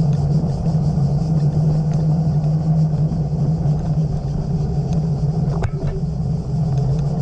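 Steady low hum and rumble of a vehicle rolling slowly along a paved lane, with a brief click about five and a half seconds in.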